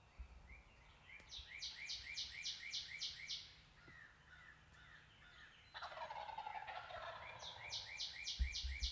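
A wild turkey gobbler gobbling once from the roost, a rattling call about a second and a half long, midway through. Before and after it a songbird sings a quick, high phrase repeated about four times a second for two seconds or so.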